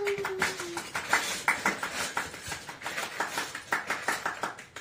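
A man clapping his hands, quick irregular claps several times a second. A long falling tone fades out in the first second.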